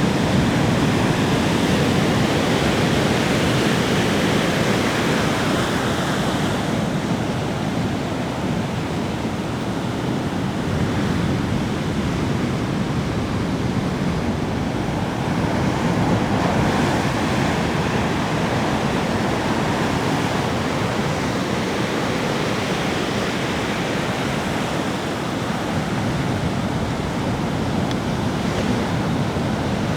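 Sea waves breaking on a beach: a continuous rushing surf that swells and eases slowly.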